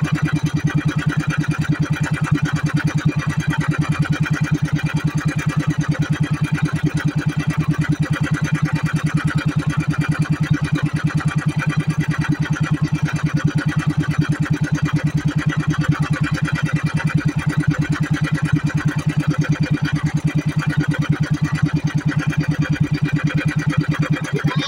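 Small outrigger boat's engine running steadily at low speed, a fast, even chugging that holds one pace throughout.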